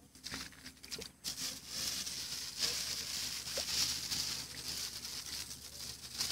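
Thin plastic bag rustling and crinkling as it is handled, with a few sharp crackles.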